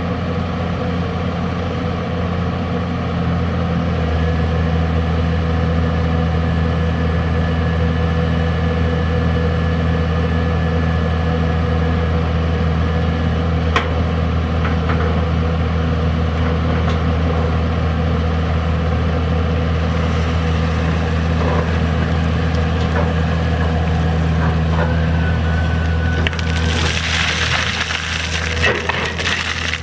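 Komatsu PC200 excavator's diesel engine running steadily under load, working harder from about four seconds in. Near the end, water and wet sand pour from the raised bucket with a hissing, crackling splash.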